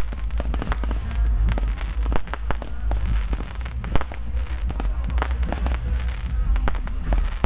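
Consumer fireworks going off in a fast, irregular string of sharp bangs and crackles, several a second, over a constant low rumble, with one louder bang about four seconds in.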